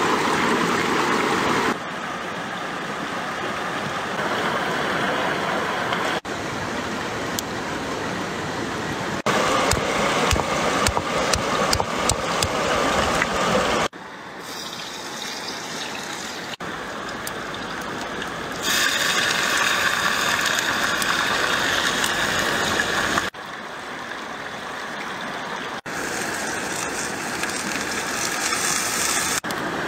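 A run of short cuts of open-air wok cooking beside a rushing stream: steady water noise throughout, with a stretch of dense crackling clicks in the middle, and water poured into the hot wok over a wood fire near the end.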